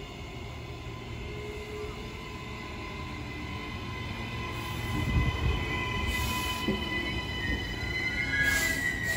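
Queensland Rail New Generation Rollingstock electric train coming into the platform at low speed: wheel-on-rail rumble that grows louder as it draws near, with a steady high whine that rises slightly near the end. There are brief hisses about six seconds in and again near the end.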